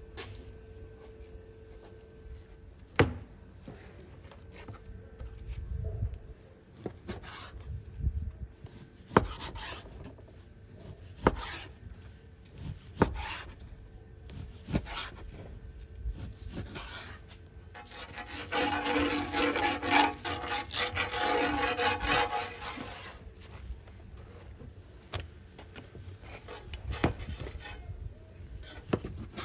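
Lamb being cut with a knife on a wooden board. Sharp knocks of the blade on the board come every second or two, with a stretch of about five seconds of louder rasping, sawing strokes a little past the middle.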